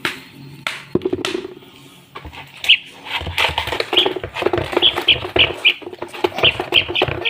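A baby bird cheeping in short, high chirps, about two or three a second, starting about two and a half seconds in, after a few sharp knocks.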